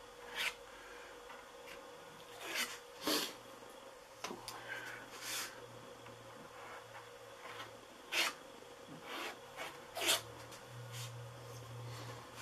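A spatula scraping as it spreads EverCoat polyester body filler over the model's fuselage, in short strokes that come irregularly, several of them, to fill low spots.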